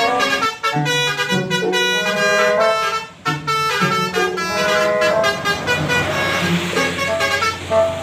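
Bus telolet horn: a set of tuned air horns playing a quick melody of stepped notes, with two short breaks. In the second half the rush of a passing vehicle rises under the horn.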